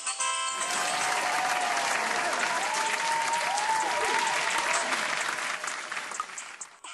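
Crowd applause and cheering with a few whistles, starting about half a second in and fading out near the end, likely a celebration sound effect announcing the wheel's winner.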